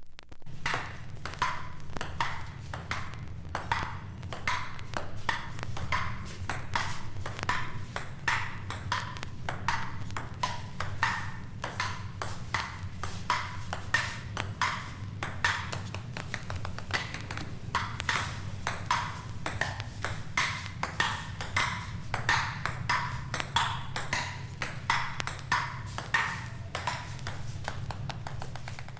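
A rapid, irregular run of short, sharp pings, several a second, each ringing briefly at a fairly high pitch, over a steady low hum.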